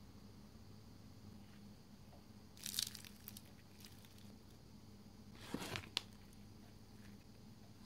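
Crispy breading on fried chicken crackling as hands tear a piece apart, in two short bursts about three seconds and five and a half seconds in, the second ending in a sharp click, over a faint steady hum.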